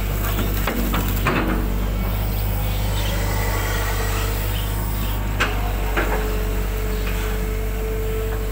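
A Hitachi 120 hydraulic excavator's diesel engine runs steadily under working load, heard from the operator's cab, while the bucket swings and digs silt out of a drainage ditch. There are several sharp knocks from the bucket and boom linkage, and a steady whine joins about two-thirds of the way through.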